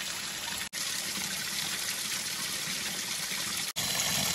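Water pouring out of a pipe and splashing down over icy rocks: a steady rushing splash, broken by two very short gaps.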